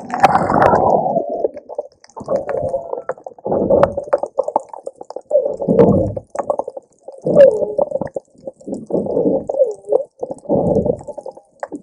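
Whales calling, heard underwater: a string of low calls about a second long each, some sliding up and down in pitch, coming one after another with short gaps between them.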